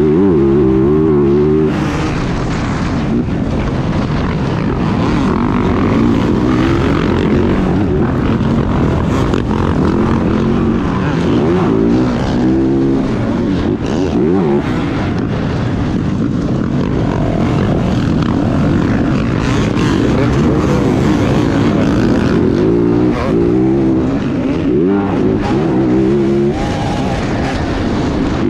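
Onboard sound of a motocross dirt bike racing, its engine revving hard and dropping back again and again as the rider works the throttle and gears. Other dirt bikes are running close around it.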